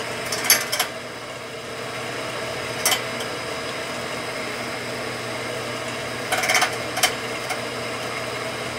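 Bench drill press motor running with a steady hum while its bit drills into the steel edge of a motorcycle exhaust tip, with a few short harsh bursts as the bit bites into the metal.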